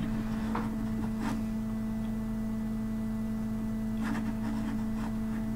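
Steady electrical hum: a constant tone with fainter overtones above it, with a few faint soft noises about half a second in, just over a second in, and around four seconds in.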